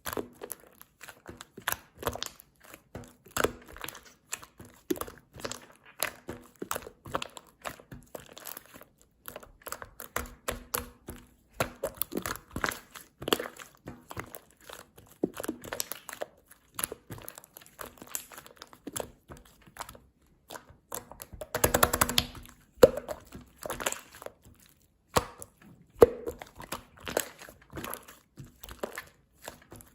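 Hands squishing, stretching and poking white slime mixed with shaving foam, making irregular sticky pops and crackles, with a denser run of squelching about two-thirds of the way through.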